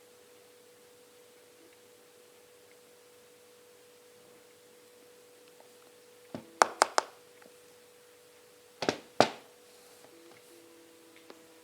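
Sharp clicks and taps from handling a smartphone and its retail box: four quick clicks about six seconds in, then two more a little before nine seconds, over a faint steady tone.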